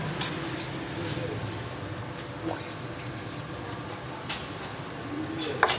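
Kitchen knife cutting into a whole gourami on a wooden cutting board, with a few short sharp taps of the blade, the loudest near the end.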